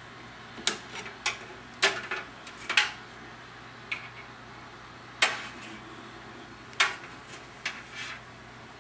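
Irregular sharp clicks and clinks of plastic connectors and cables being handled against a steel computer case as SATA data cables are plugged into the drives and motherboard.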